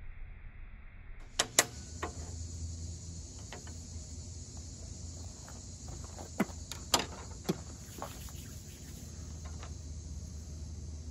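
Stanley 10-049 pocketknife cutting a notch into a dry wooden fireboard, giving a scatter of sharp woody clicks and snaps, loudest twice just after a second in and three times in the middle. A steady high hiss runs beneath from about a second in.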